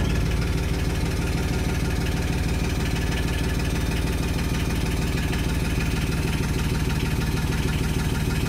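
John Deere Gator's Yanmar diesel engine idling steadily.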